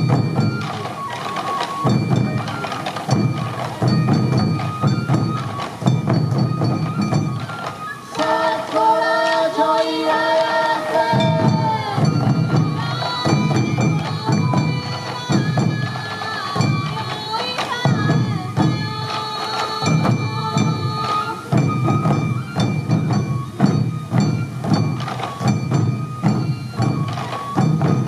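Sansa-odori taiko drums, slung at the waist and struck with sticks by the dancers, beating a steady rhythm under a high, held melody line. About eight seconds in the drums stop for some four seconds while the melody sounds on its own, then the drumming resumes.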